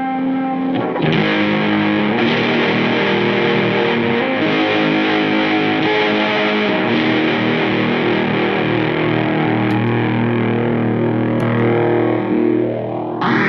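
Distorted electric guitar, a Fender Stratocaster played through effects pedals into an Egnater Tweaker amp, with sustained chords and held notes. Near the end a sweeping, whooshing effect rises in pitch.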